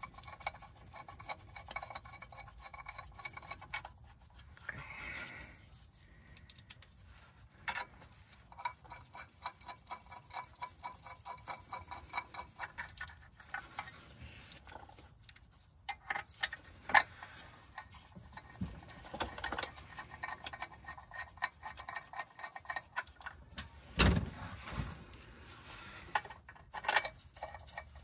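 Ratchet wrench with a 10 mm 12-point socket clicking in quick, even runs as the clutch pressure plate bolts are driven in, with a few louder knocks in the second half.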